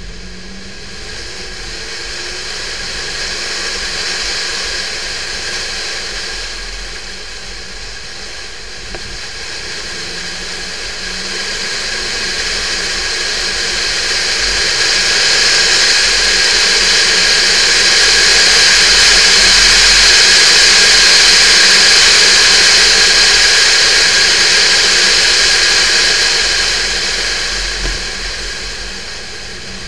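Onboard sound of a Porsche 911 type 996 driven briskly: a loud rush of wind and road noise that swells and eases with speed, loudest past the middle and dropping near the end, with the water-cooled flat-six's note faint underneath.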